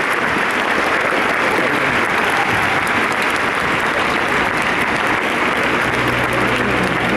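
Large arena crowd applauding steadily, a dense continuous clapping.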